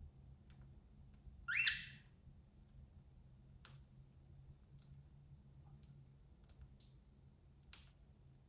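A cockatiel gives one short rising chirp about a second and a half in, with faint scattered clicks of its beak cracking millet seeds.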